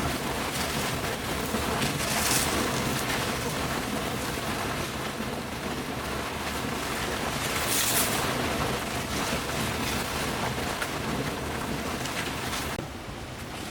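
Steady rushing water noise, with louder hissing swells about two seconds in and again about eight seconds in.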